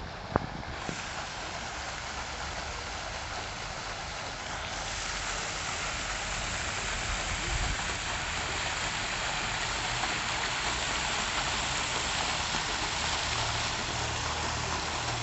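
Fountain jets spraying and splashing into a stone basin: a steady hiss of falling water that steps up in loudness about a second in and again about five seconds in. A single sharp click sounds about half a second in.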